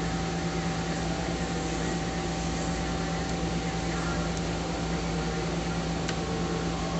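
Romi C420 CNC lathe running with its three-jaw chuck spindle turning slowly, a steady machine hum with a constant low tone and a fainter higher one.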